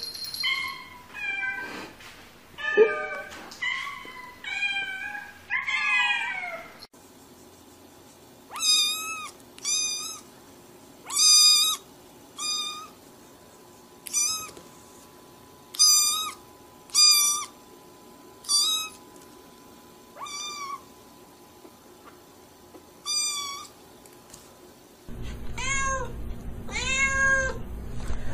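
Domestic cats meowing in a series of clips. First comes a quick run of meows, then a kitten's high mews, about a dozen spaced a second or so apart, and near the end an adult cat's lower meows over a steady low hum.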